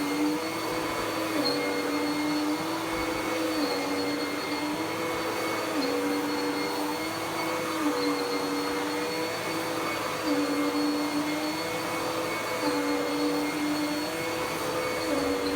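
Dirt Devil PowerMax Pet vacuum cleaner running steadily with a motor hum and airflow noise. Its pitch dips slightly and recovers about once a second.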